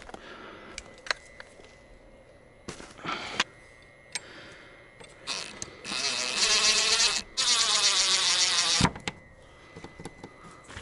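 Yellow cordless power driver run in two bursts of about a second and a half each, a little past the middle, with a few short knocks and clicks of handling before.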